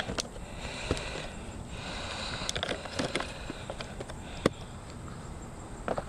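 Clear plastic blister packaging being pulled and torn open by hand: scattered crinkles and sharp cracks, the loudest about four and a half seconds in.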